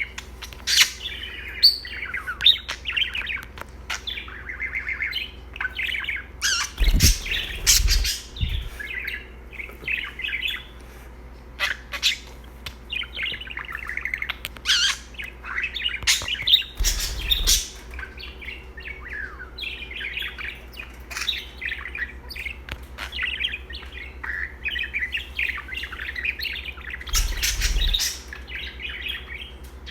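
Pet budgerigar warbling and chattering continuously in quick, twittering chirps. A few louder, sharp sounds break in, around a quarter of the way through, about halfway and near the end.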